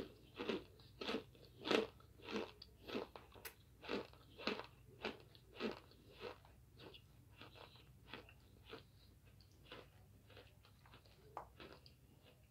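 Crunching and chewing of oven-baked cornstarch chunks, a short crunch about twice a second. The crunches are loudest in the first half and grow softer later on.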